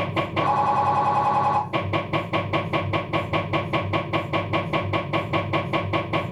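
Philips 1.5 T MRI scanner's gradient coils running an axial diffusion-weighted sequence with navigator: steady knocking about five times a second, with a louder buzzing burst of just over a second about half a second in.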